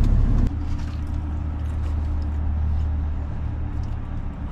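Ram 2500 pickup truck's engine running with a steady low hum. The sound drops abruptly about half a second in, then holds steady.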